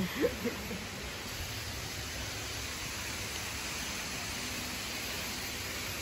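Steady rush of a forest waterfall's falling water, an even hiss with no breaks.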